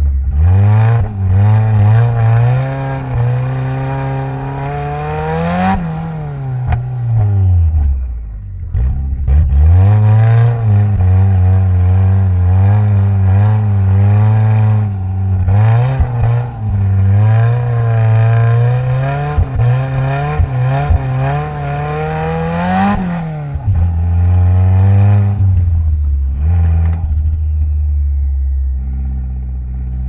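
Mitsubishi Lancer Evolution X's tuned 500 hp turbocharged 2.0-litre four-cylinder revving at low speed on snow. There are two long stretches of climbing, wavering revs, each held for several seconds and then dropped, with a faint high whine that rises and falls with the engine. Near the end it settles to low, steady running.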